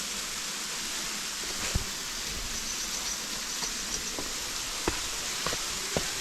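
Steady rush of a waterfall, with a few scattered knocks of footsteps on a slippery path.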